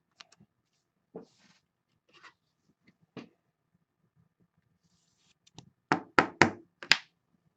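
Trading cards and a rigid plastic top loader being handled on a tabletop: a few faint clicks, then a quick run of about five sharp knocks near the end.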